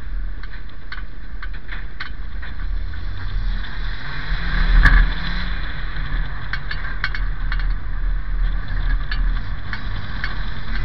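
Banger race car's engine running, heard from inside the stripped cabin, with frequent short rattles and knocks from the shell. About five seconds in the sound briefly swells with a sharp knock.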